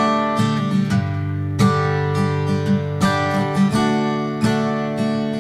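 Background music: acoustic guitar playing plucked and strummed chords.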